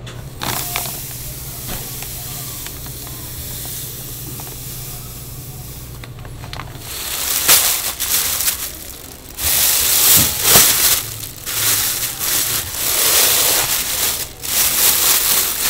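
A steady hiss with a low hum, then loud, irregular crinkling of a large plastic bag as gloved hands unwrap and handle a batch of risen dough.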